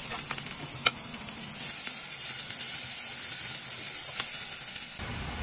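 Chopped onions sizzling in hot oil in a stainless steel pot as they are stirred with a wooden spoon. Two light clicks of the spoon against the pot come about a second in and about four seconds in.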